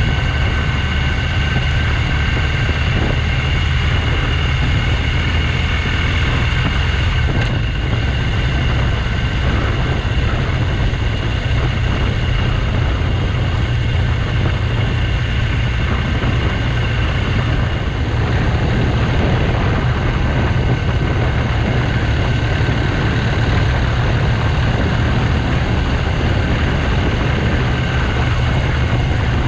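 BMW R1200GS Adventure's boxer-twin engine running steadily while the bike rides along, mixed with a heavy low rumble of wind and road noise on the camera microphone. A thin steady whine sits above it and grows fainter about halfway through.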